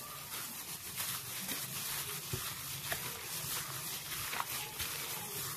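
Gloved hand squishing and mixing raw chicken livers in a thick spice, flour and egg marinade in a glass bowl: soft, wet squelching with a few faint knocks.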